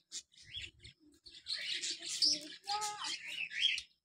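Many small caged birds chirping and twittering over one another, scattered at first, then a dense burst of chatter from about a second and a half in.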